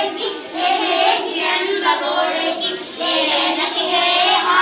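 Children singing, their voices picked up by a handheld microphone held close to them.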